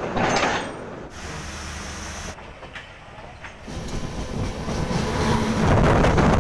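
Passenger train running, heard from on board: wheels on the rails with a few clicks, and a rushing noise that grows louder over the last couple of seconds. The sound changes abruptly twice near the start where short clips are cut together.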